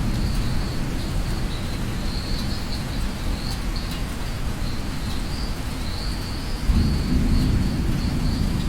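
Steady rain with a low rumble of thunder, which swells again about seven seconds in.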